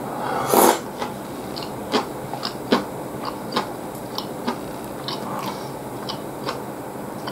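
Close-miked eating of ramen noodles: a short loud slurp about half a second in, then chewing with sharp, wet mouth clicks about twice a second.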